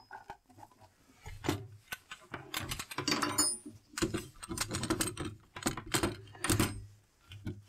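Irregular knocks and clatters of an angle grinder on its plywood carriage being handled and set down onto a metal guide rail, wood and metal bumping together; the grinder is not running.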